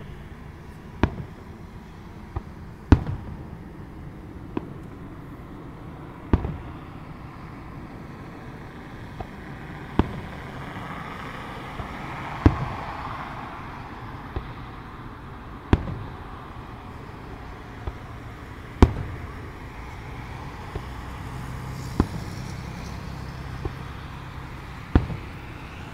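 Aerial fireworks shells bursting at a distance: a string of sharp bangs spaced irregularly, one to three seconds apart, over a low steady background.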